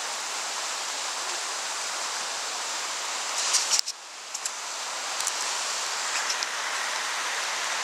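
Steady rush of river rapids heard close up from a kayak. A cluster of short sharp sounds comes about three and a half seconds in, after which the rush briefly drops before recovering.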